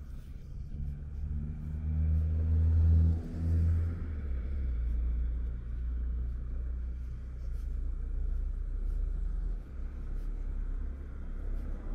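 Road traffic: a motor vehicle engine builds to its loudest about three seconds in, then gives way to a steady low rumble.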